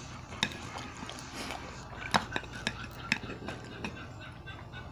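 Eating at a table: chewing with scattered sharp clicks of a metal spoon and chopsticks against plates and foil trays.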